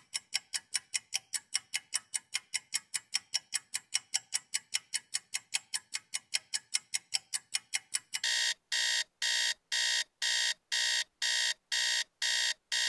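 Clock ticking fast and evenly, about five ticks a second. About eight seconds in it gives way to an electronic alarm clock beeping, nine loud high-pitched beeps about two a second: the wake-up alarm.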